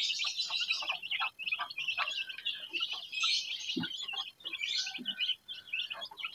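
A brood of about thirty young kampung (Indonesian native) chicks cheeping continuously, many high peeps overlapping while they feed, with scattered light ticks of beaks pecking mash from plastic feed trays.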